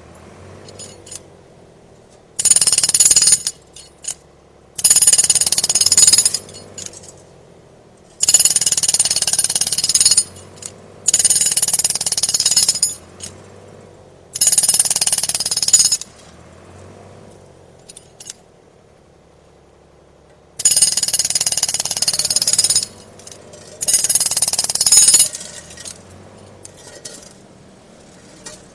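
Pneumatic jackhammer breaking in short bursts: seven runs of rapid hammering, each one to two seconds long, stopping and starting with quieter pauses between them.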